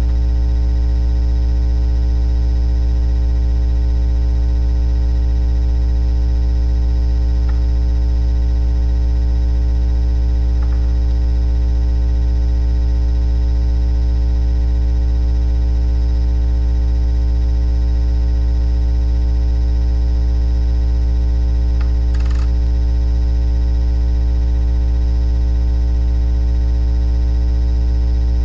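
Loud, steady electrical mains hum with a buzzy stack of overtones in the webcam's audio, unchanging throughout, with a few faint clicks, the plainest about twenty-two seconds in.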